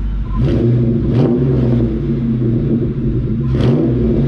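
Ford 4.6-litre V8 of a 1999–2004 Mustang GT, through a DNA Motoring catback and JBA off-road H-pipe, revved up from idle about half a second in and held at raised revs, with a few sharper throttle blips.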